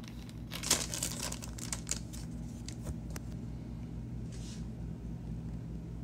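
Clear plastic packaging bag crinkling and rustling as it is handled and opened, densest in the first two seconds, followed by a few light clicks.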